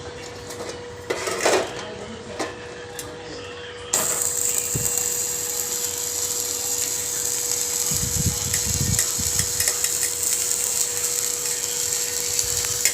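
Welding arc on stainless steel striking about four seconds in, then crackling and hissing steadily. Before it strikes there are a few clicks and knocks, and a steady hum runs underneath throughout.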